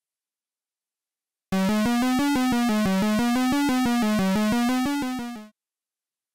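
Short synthesizer tune of quick, evenly repeated notes, starting after a moment of silence and fading out about four seconds later.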